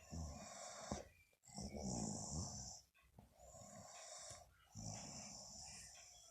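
A woman snoring in her sleep: four faint, rough breaths in a steady rhythm, each about a second and a half long.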